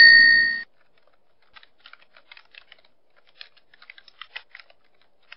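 A short, loud ringing tone that stops abruptly just after the start, followed by soft computer-keyboard typing: a light, irregular patter of key clicks.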